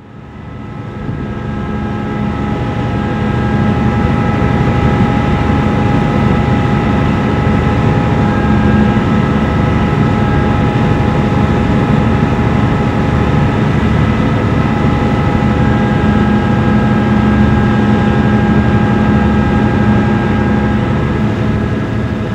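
Ferry MV Quinitsa's engines running steadily under way: a loud, deep drone with several steady humming tones over it, fading up at the start.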